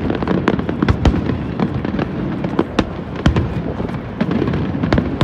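Fireworks exploding in rapid, irregular succession, several sharp bangs and crackles a second over a continuous low rumble.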